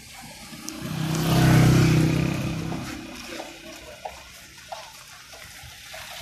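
Road traffic heard from inside a moving car: a vehicle's engine and tyre noise swells to a peak about two seconds in and fades away. A lower, steady road hiss with a few small knocks follows.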